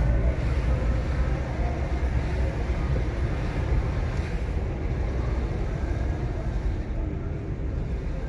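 A car driving along: steady engine and road noise with a low rumble.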